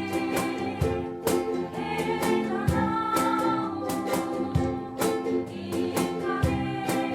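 Live ukulele ensemble strumming chords, about two strokes a second, under a sustained melody line.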